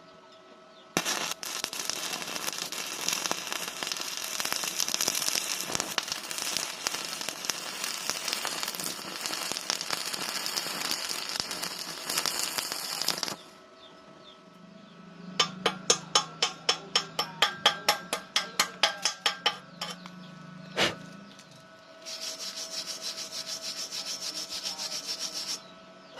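Stick welding arc crackling and spitting for about twelve seconds, then cutting off. A quick run of about a dozen sharp knocks follows, about three a second, then a single knock, and a second shorter stretch of arc crackle near the end.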